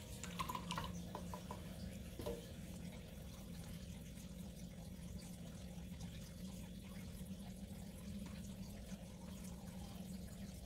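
Steady low room hum with a few light clicks and clinks in the first two seconds as paint supplies and a brush are handled, then only faint handling noise while a swatch of gouache is brushed on.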